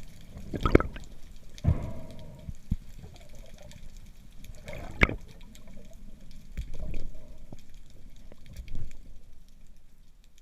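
Water sloshing and gurgling against the diver's camera, broken by several sharp knocks; the loudest come about a second in and about five seconds in.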